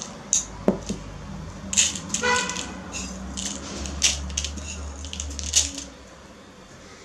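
Hand pressing chocolate sprinkles onto the whipped-cream sides of a cake, with loose sprinkles scattering onto the board: a run of light, irregular taps, ticks and rustles, plus a brief pitched squeak about two seconds in.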